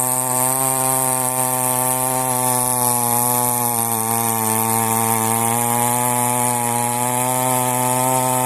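Chainsaw running steadily while cutting into a date palm trunk, its pitch wavering slightly as the chain bites.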